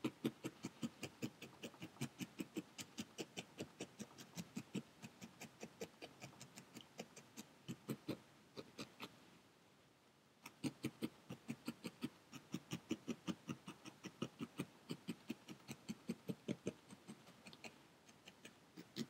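Felting needle stabbing repeatedly through an orange wool ball into a foam pad: a steady run of soft taps at about four a second, pausing briefly about halfway through and then carrying on. The wool is being sculpted and firmed into a pumpkin shape.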